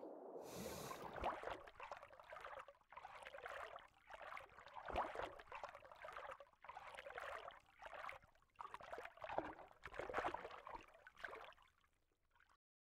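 Water sloshing and gurgling around an action camera's housing as it rises to the surface and bobs in the swell. Soft swishes swell and ebb about every second or so, then fade out near the end.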